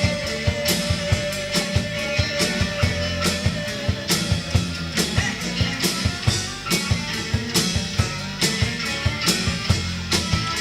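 Live rock band playing an instrumental passage with no vocals: a drum kit keeping a steady beat under electric guitar, with a long held note in the first three seconds or so.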